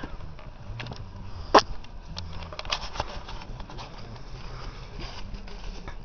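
Footsteps rustling through dry fallen leaves, with scattered small crackles and one sharp click about one and a half seconds in.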